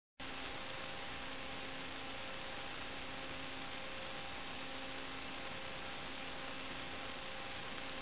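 Steady static hiss with a constant electrical hum and its overtones, from the audio channel of an analog FPV video recording, starting suddenly just after the start.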